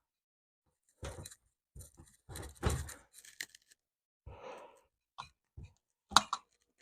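Hard parts being handled and fitted: a series of short clattering knocks and scrapes, a longer scrape about midway, and a couple of sharp clicks near the end.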